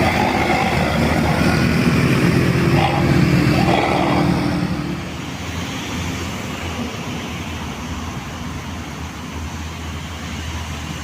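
Heavy bus diesel engine running close by with a rough, pulsing sound, dropping away about five seconds in to a quieter, steady traffic sound.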